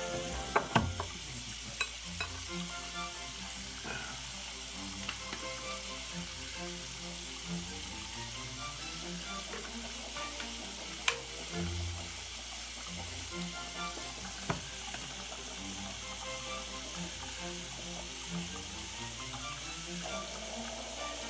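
Steady hiss with faint music underneath, broken by a few sharp clicks, the loudest about eleven seconds in.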